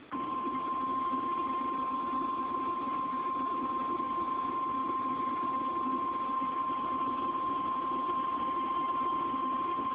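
NOAA Weather Radio warning alarm tone: a single steady high beep near 1050 Hz held unbroken for about ten seconds over a low background hiss, the alert signal that comes before a new warning message.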